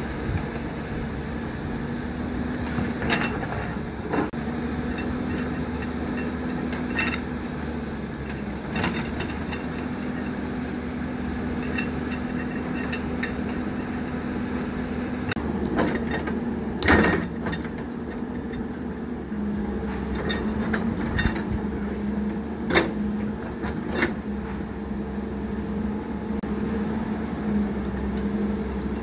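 Caterpillar tracked hydraulic excavator's diesel engine running steadily under digging load, its pitch stepping down slightly about two-thirds of the way through. Scattered clanks and knocks come from the bucket working soil, the loudest about halfway through.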